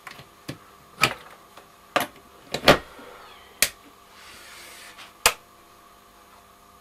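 A series of sharp clicks and clunks, about eight, spaced irregularly, from handling the controls and deck of a Ferrograph Series 4 valve tape recorder, over a faint steady hum.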